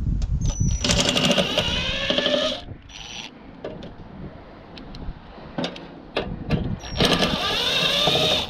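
A cordless power driver runs in two short whirring bursts, about a second in and again near the end, with pitch that sags as it works. It is backing screws out of a microwave's metal casing. Small clicks and knocks of handling come between the bursts.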